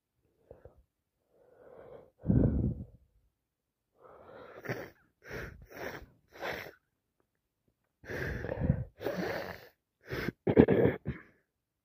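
A person with a summer cold sneezing and sniffing, with wheezy, gasping breaths between. There is a loud sneeze about two seconds in, a run of short sniffs in the middle, and another burst of sneezes near the end, the loudest.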